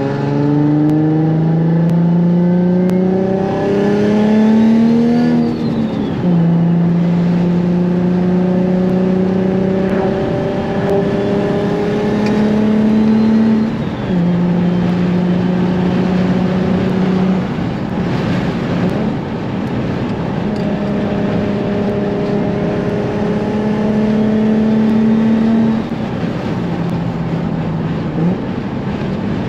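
Single-turbo Nissan 350Z's V6 heard from inside the cabin, pulling through the gears. The engine pitch climbs, then falls at each gear change, several times over.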